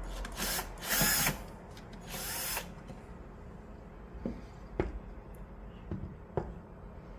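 Power drill backing small screws out of a watch winder's housing in three short bursts in the first couple of seconds, followed by a few light clicks.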